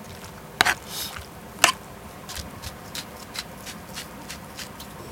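A spoon knocking sharply against the bowl twice while stirring a thick chive-and-shrimp pancake batter, then a salt grinder twisted over the bowl, clicking lightly about four times a second.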